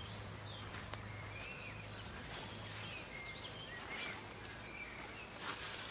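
Quiet garden ambience: scattered short chirps of small birds, with faint rustling as squash leaves brush against the camera.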